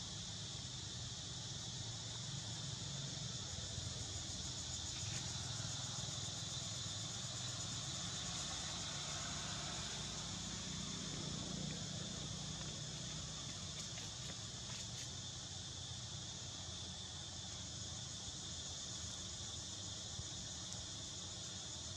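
Steady chorus of insects trilling in a continuous high drone, with a low steady rumble underneath.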